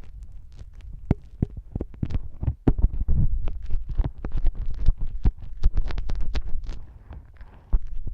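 Close-miked crackling and scraping of an ear-cleaning tool working wet, sticky fake earwax in a silicone ear model: many quick, sharp clicks over a low rumble.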